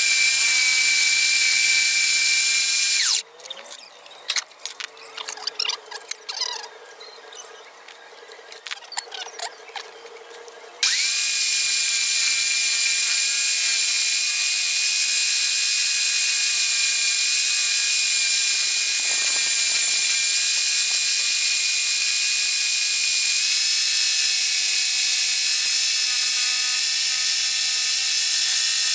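Homemade scroll saw running with a steady high-pitched motor whine as it cuts a wooden board. It stops about three seconds in, leaving only faint clicks and rattles, then spins back up with a brief rise in pitch around eleven seconds in and runs steadily again.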